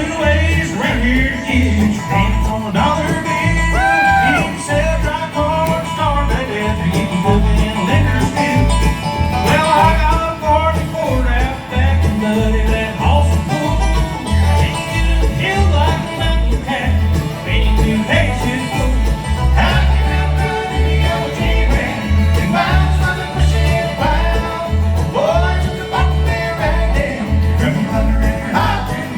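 Live bluegrass band playing, with banjo and guitar over a steady bass beat.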